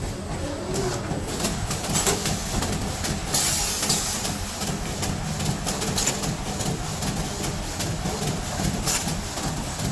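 BT-720 high-speed single-line plastic T-shirt bag making machine running: a steady mechanical drone with repeated clacks of its moving parts at uneven spacing, and a longer hiss about three seconds in.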